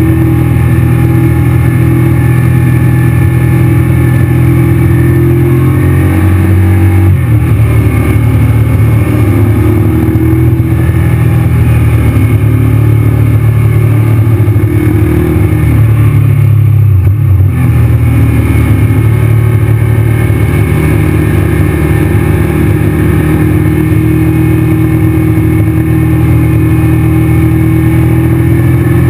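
Honda VTR1000 V-twin engine running under load, heard from onboard the moving motorcycle. The engine note shifts about seven seconds in and dips briefly around seventeen seconds, as the throttle or gear changes through the bends.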